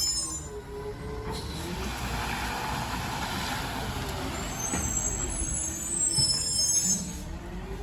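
Garbage truck working, a whine gliding up and down over and over under a steady engine noise, with a hiss in the middle and high brake squeals between about five and seven seconds in.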